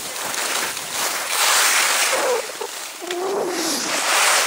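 Alpine skis scraping and carving on hard-packed groomed snow, the hiss swelling with each turn as the skier slows. A short pitched cry, like a distant shout, is heard twice a little after the middle.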